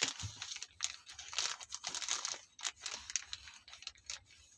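Packaging crinkling and rustling as the robot vacuum's accessories are handled, in irregular crackles with a few sharp clicks.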